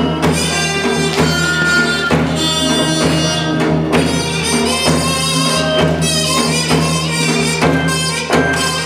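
Korean traditional (gugak) folk-song music playing, with a steady beat and sharp percussion strikes over a sustained low drone.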